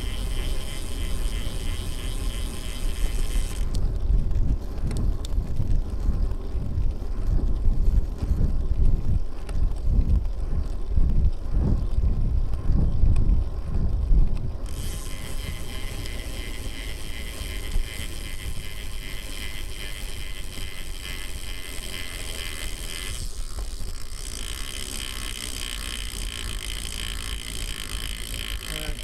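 Wind buffeting the microphone of a bike-mounted camera on a moving road bicycle, along with the rush of the ride. The wind rumble is heaviest from about four seconds in until about fifteen seconds, then settles into a steadier, quieter rush.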